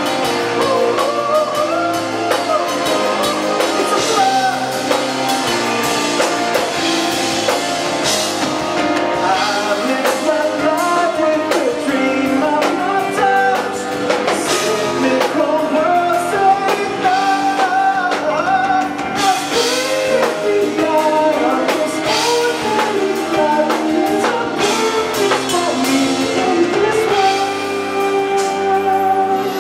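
Live rock band playing, with drum kit, electric guitar and keyboards, and a male lead singer's voice over the band.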